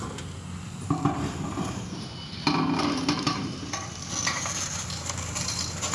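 Caterpillar excavator running steadily while its demolition grapple tears into a wood-framed building: crunching and crackling of splintering timber and sheet-metal roofing, with a short burst about a second in and a longer, louder stretch from about two and a half seconds on.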